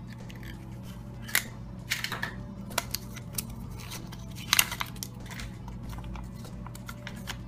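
Handling of a plastic Kinder Surprise toy capsule and its folded paper leaflet: light plastic clicks and paper crinkling as the leaflet is unfolded, with the sharpest clicks about one and a half seconds in and about four and a half seconds in. A steady low hum runs underneath.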